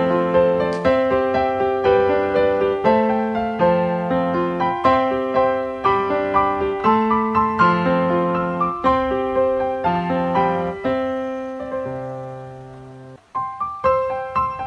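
Background piano music: a gentle stream of single notes and chords, fading on a held chord near the end before the playing starts again.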